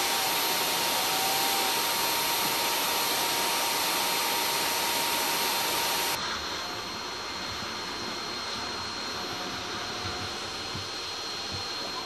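Bee vacuum running steadily as its hose sucks a swarm of honeybees off a window shutter. About halfway through, its sound suddenly becomes quieter and duller.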